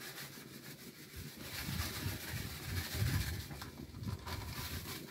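Soft rustling and handling noise with low bumps, as a plastic packet of magnesium sulfate fertilizer is handled and shaken out into a plastic drum.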